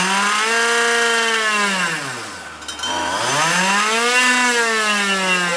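Two-stroke kart engine revved twice from idle: each rev climbs, holds for about a second and a half and drops back, the second beginning about three seconds in.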